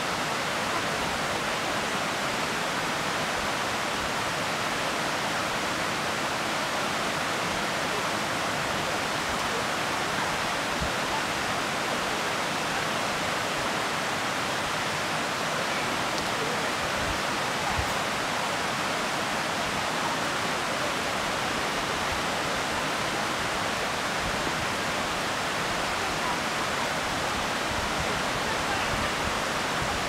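Steady rushing of running water, an even hiss that holds at one level throughout.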